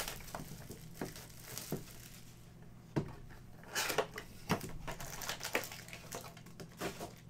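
A cardboard trading-card box and its foil-wrapped pack being handled and opened by hand: scattered soft knocks and short crinkling rustles.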